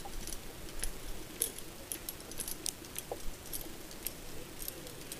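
Light, irregular clicking and clinking, several short sharp ticks a second, over a faint low background rumble.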